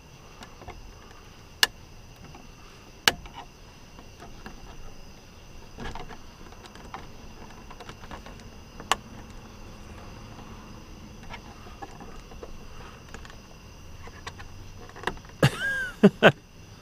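A few sharp plastic clicks spaced seconds apart, then near the end a creak and a quick run of louder snaps as a plastic interior light cover is worked back into place.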